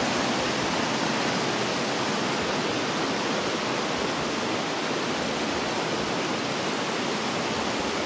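Mountain stream rushing over granite slabs and small rapids: a steady, even rush of water.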